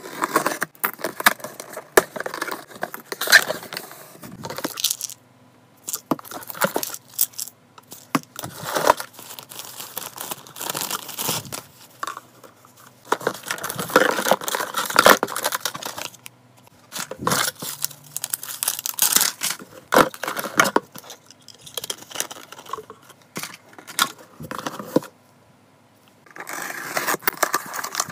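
Unboxing a cardboard parcel by hand: packing tape slit and torn, cardboard rustling and plastic wrapping crinkling. It comes in bursts with short pauses, with a few sharp clicks and knocks as items are handled.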